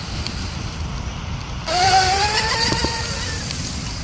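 The twin brushless electric motors of an RC speed boat whine as the boat runs past close by. The whine sets in about two seconds in, rises in pitch and then levels off, lasting under two seconds. Wind rumbles on the microphone throughout.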